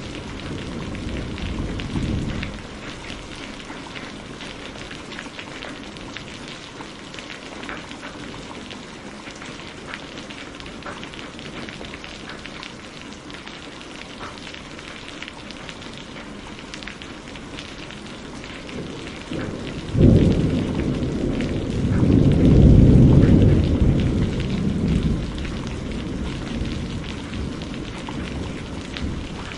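Steady rain falling with scattered drips. A low thunder rumble fades out in the first couple of seconds. About two-thirds of the way through, a sharp thunderclap breaks into a long low rolling rumble, the loudest part, before dying away.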